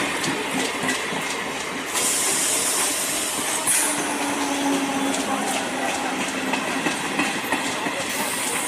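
EMU electric suburban local train passing close by: a continuous rumble and clatter of its wheels on the rails. A rushing hiss swells about two seconds in and again near the end.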